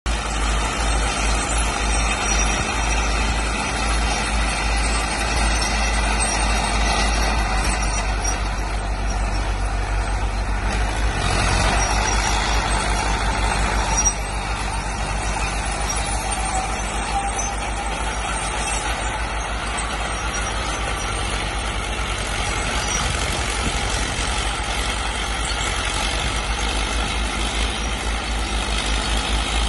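Vintage crawler tractors, Fiat 60C, running steadily under load while ploughing, with a low, fast engine throb. The sound drops abruptly to a slightly lower level about halfway through.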